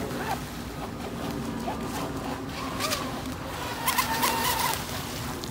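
Radio-controlled speedboat running fast across the pond: a steady hiss of motor and hull spray. Short sharp squeaky clicks come through about three seconds in, and louder ones around four seconds in.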